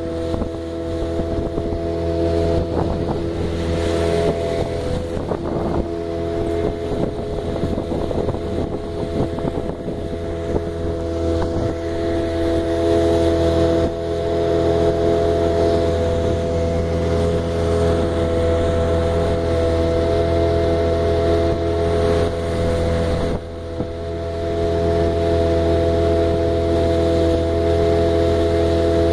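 Outboard motor running at a steady cruising speed, pushing a small open boat along, with wind on the microphone. A steady drone, dipping briefly near the end.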